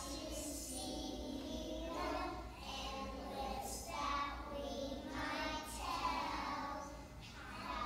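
A group of young children singing a song together.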